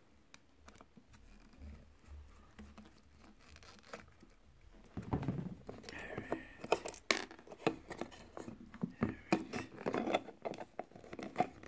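Hand-blender repair: a few faint ticks, then from about five seconds in a busy run of sharp clicks, knocks and rustles as the blender's plastic housing and parts are handled and pried apart.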